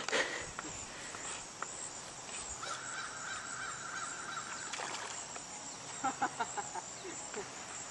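Quiet outdoor background with a faint steady buzzing note lasting about two seconds in the middle, then a quick run of short harsh sounds about six seconds in.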